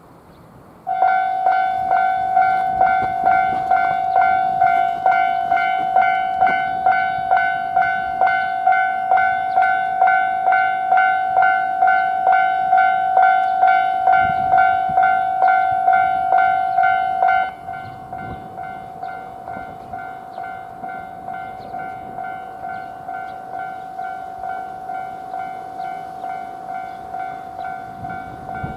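Japanese level-crossing warning bell (the 'kan-kan' alarm) starting up about a second in and ringing in a quick, even rhythm of just under two strikes a second. About two thirds of the way through it drops sharply in volume and keeps ringing.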